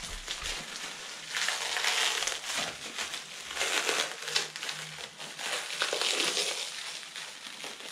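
Plastic wrapping crinkling and crumpling as it is pulled apart and unwrapped by hand, in several swells of crackling.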